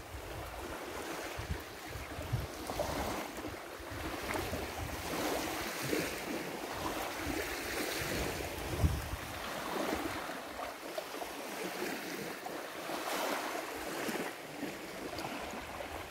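Small sea waves lapping and washing on a sandy shore, swelling and fading every couple of seconds, with wind gusting on the microphone.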